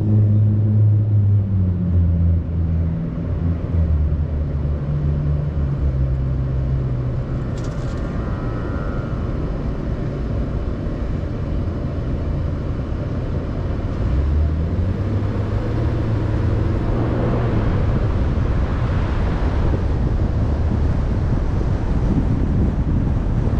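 Car engine heard from inside the car, idling low and steady while stopped, then rising in pitch as the car pulls away a little over halfway through, with road and tyre noise building.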